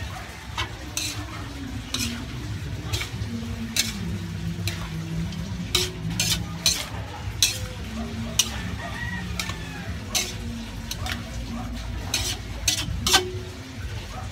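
Metal spatula scraping and clanking against a large aluminium wok while vegetables and pork are stir-fried, with sizzling underneath. The clanks come irregularly, about once or twice a second.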